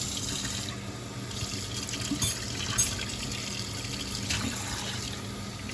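Water running steadily from a tap into a sink, with a few light clicks about two and three seconds in.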